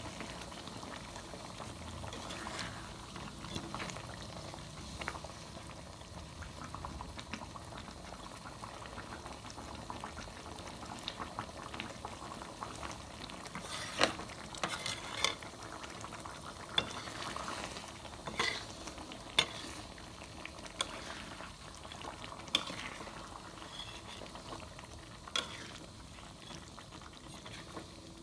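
Thick coconut-milk curry of jengkol bubbling in a metal wok while a wooden spatula stirs it. Sharp knocks and scrapes of the spatula against the pan come more often and louder from about halfway through.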